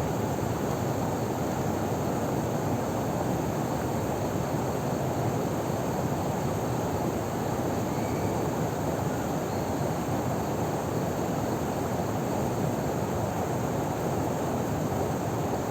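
Steady rush of flowing river water spilling over a small waterfall, an even, unbroken noise.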